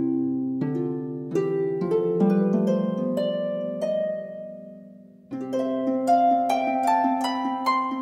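Background instrumental music of plucked-string notes, each struck and left to ring, forming a melody; the first phrase fades away and a second begins about five seconds in.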